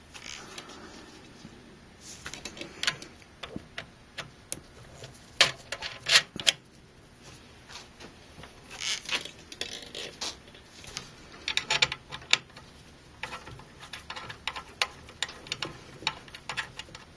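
CPU cooler mounting hardware, small screws and metal cross pieces, being handled and screwed onto the standoffs: irregular light clicks, taps and short scrapes.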